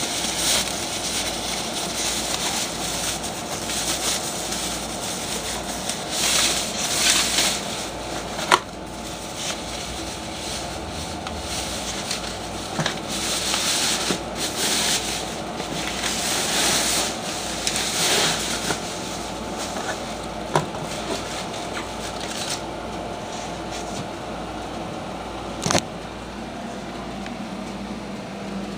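Plastic packing wrap crinkling and rustling in irregular bursts as it is handled and pulled out of a cardboard box, with a sharp knock about a third of the way in and another near the end, over a steady low hum.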